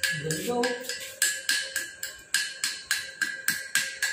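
Chipping hammer tapping slag off a fresh weld bead on steel: rapid metallic strikes, about four a second, each with a short ring.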